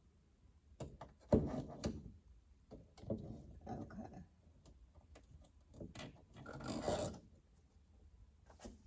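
Handling noises from fitting a plastic smoke alarm base: several short bouts of scraping, rubbing and clicking. The loudest comes about a second and a half in, and another around seven seconds in.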